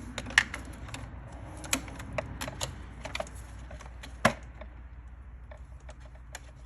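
Small plastic and rubber parts of a car's evaporative emissions purge valve being handled by hand: irregular light clicks and taps, with two sharper clacks about half a second in and a little after four seconds.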